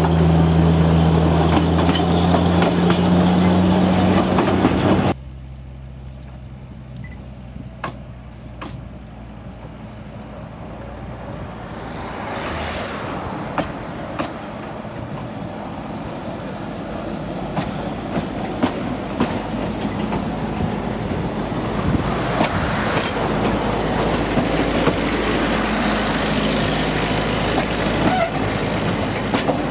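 Narrow-gauge train passing close, with a steady low engine hum for the first few seconds, then an abrupt drop to quieter rolling. Wheels then rumble and click over the rail joints, growing steadily louder as the carriages come past.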